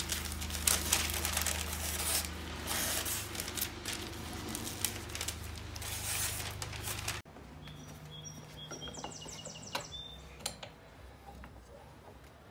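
Packing paper crinkling and rustling as a hand plane is unwrapped, over a low hum, for about seven seconds. It then cuts off abruptly, leaving a quiet outdoor background with a few faint bird chirps and a short trill.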